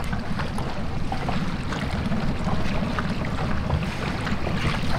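Wind buffeting the microphone in a steady, low fluttering rumble, with light splashes and drips of water around a kayak on calm water.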